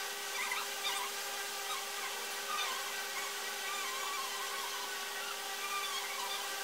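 Steady multi-tone background hum, with faint squeaky scratching of a pen drawing on sketchbook paper.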